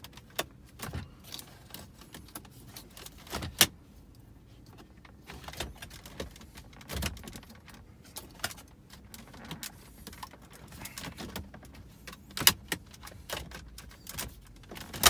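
Ford Focus ST centre dash trim and radio bezel being pressed and fitted into place: a scatter of plastic clicks, taps and snaps from its clips. The sharpest snaps come about three and a half seconds in and again near the end.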